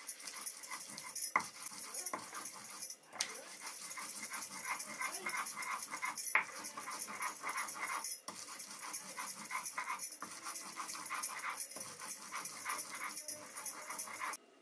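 Hand stone rubbed quickly back and forth over a flat stone grinding slab (Nepali silauto and lohoro), rasping as it grinds seeds and green herbs into a paste. A continuous run of fast scraping strokes with a few brief pauses, cutting off suddenly near the end.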